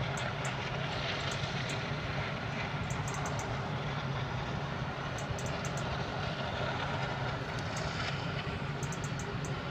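Steady industrial roar of a coal-fired thermal power plant, a continuous rushing noise over a low, even hum.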